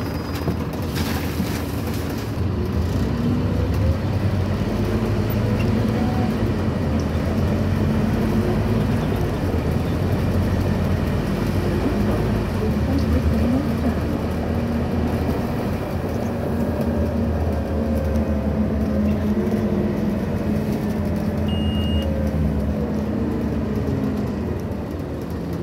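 Scania N230UB OmniCity bus's five-cylinder diesel engine and drivetrain heard from inside the passenger saloon, running steadily over road noise, its note rising and falling several times as the bus drives along. A brief high beep comes near the end.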